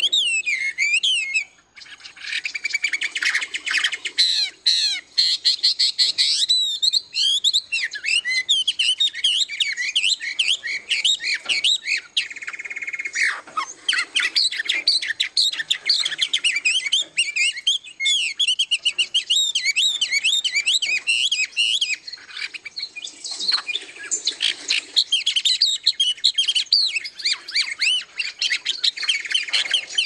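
Several songbirds singing at once: a dense, overlapping chorus of whistled phrases and rapid chirps, with a brief pause just before two seconds in.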